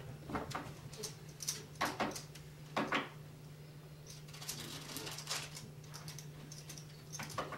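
Playing cards being dealt by hand onto a table: a scattering of short taps and slaps, the sharpest about two and three seconds in, over a steady low hum.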